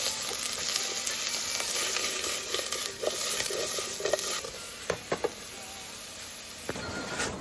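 Food sizzling in a pan, with a few light clinks of a utensil against it. The sizzle drops away about halfway through.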